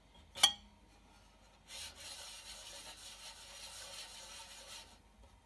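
A sharp clink of the ceramic espresso cup about half a second in. Then about three seconds of steady scraping as the cup is swirled against the surface under it.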